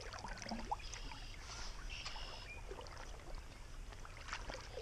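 Shallow creek water splashing and gurgling close to the surface as someone wades through it in waders, with many small irregular splashes.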